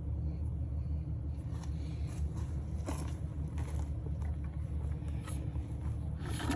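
An engine idling with a steady low rumble, with a few faint clicks and knocks on top.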